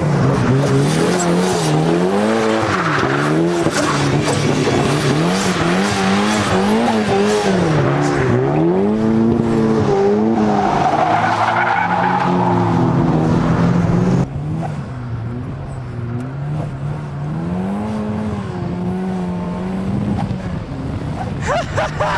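Car engine revving up and down as it is driven hard around a track, with tires squealing near the middle. About two-thirds of the way through the sound drops suddenly and the engine carries on more quietly.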